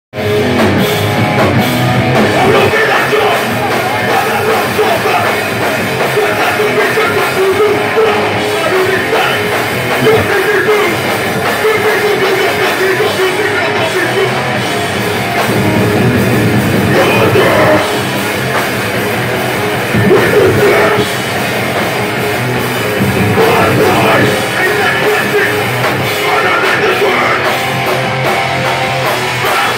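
Hardcore punk band playing live: drum kit, distorted electric guitar and a singer's vocals, loud and continuous.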